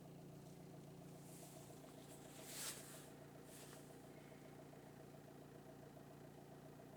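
Opel Astra H turbo-diesel engine idling steadily and quietly. A few brief hisses come about two to three seconds in, the middle one the loudest.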